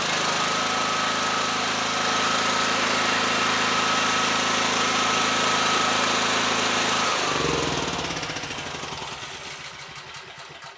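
Portable petrol generator engine running steadily under a test-light load, with a thin high whine above it. About seven seconds in it is switched off: the engine's pitch falls and it winds down to a stop.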